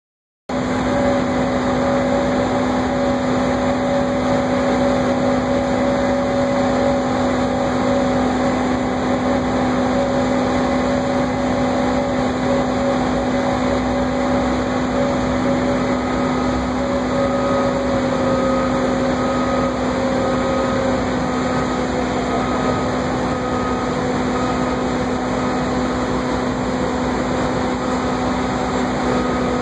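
Crane engine running steadily while it hoists a precast concrete wall panel. A faint beeping, about once a second, joins about halfway through.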